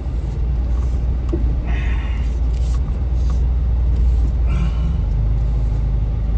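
Steady low rumble of strong wind buffeting the microphone, mixed with an off-road Jeep's engine running, with a couple of brief hissy gusts.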